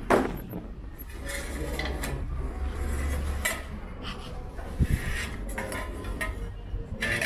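Dishes and cutlery clattering: irregular clinks and knocks of plates, pans and metal utensils being handled.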